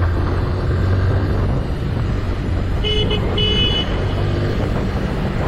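Motorcycle riding at speed with a steady low engine and wind rumble. About three seconds in, a horn sounds two short, high-pitched toots.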